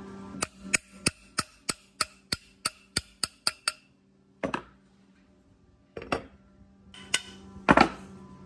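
Metal parts handled on a concrete floor: a quick run of about a dozen sharp clicks, coming slightly faster toward the end, then a few separate knocks as the aluminium bearing housings are set down.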